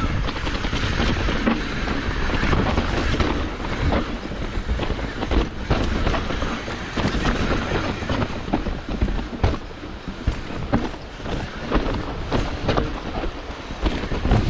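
Hardtail mountain bike rolling fast down a dirt trail: tyres on dirt and rocks with a continuous rumble, and the frame and chain rattling in many quick, irregular knocks over the bumps.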